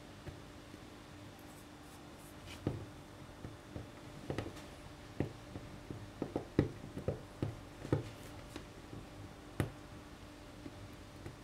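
Fingernails picking and scraping at melted plastic bag stuck to a glass-ceramic hob: irregular small scratches and clicks as bits of plastic are prised off, starting a couple of seconds in and thickest in the middle.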